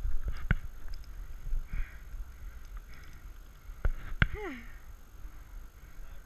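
Airsoft guns firing single shots: a sharp crack about half a second in and two more close together around four seconds in, over low rumbling wind and movement noise on a body-worn camera's microphone. Just after the last shot there is a short call that falls steeply in pitch.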